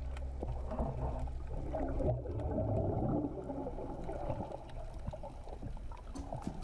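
Muffled underwater sound picked up by a camera in a waterproof housing: water sloshing and rumbling over a low steady hum, with a run of sharp clicks near the end.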